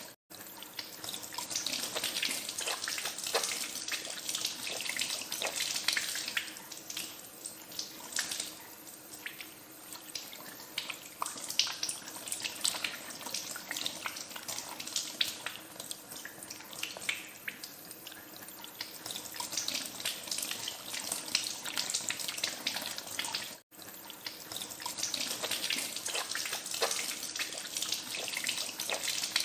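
Tap water running into a sink, with irregular splashing from hands being washed under the stream. It cuts out for an instant twice, just after the start and about three-quarters of the way through.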